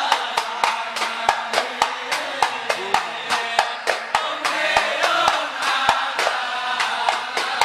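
Hand-struck frame drums (terbang) of an Ishari hadrah ensemble beating a fast, even rhythm, with men's voices chanting faintly underneath.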